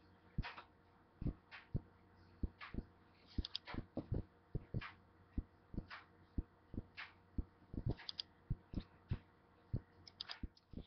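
Irregular soft thumps and knocks, two or three a second, over a faint low hum.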